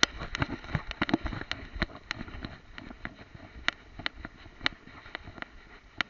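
Camera mounted on a dog's head picking up the dog moving through long grass: irregular sharp clicks and knocks of the camera mount, several a second, with rustling and low bumps mostly in the first two seconds.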